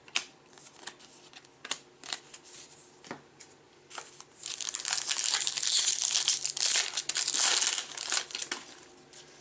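Light clicks of cards being handled, then from about four seconds in a loud, dense crinkling of a trading-card pack wrapper being torn open and crumpled, lasting about four seconds.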